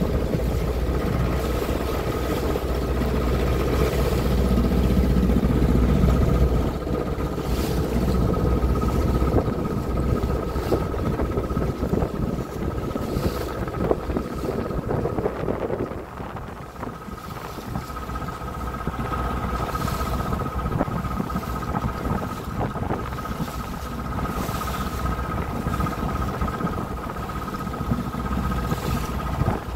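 Pilot boat's engine running steadily, heard on board, with a steady high whine over a deep rumble, and water rushing past the hull. The rumble drops back at about six seconds and again at about sixteen seconds.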